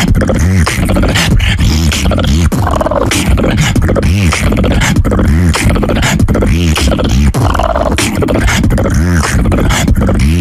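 Human beatboxing: a fast, dense beat of mouth-made kick and snare strokes over a continuous deep bass that bends up and down in pitch.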